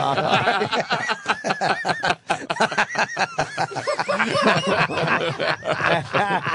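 Radio show hosts laughing hard together, several men's overlapping laughs in quick repeated bursts.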